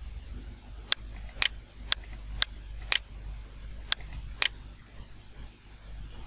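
Computer mouse button clicking seven times, about two clicks a second, with a short pause before the last two.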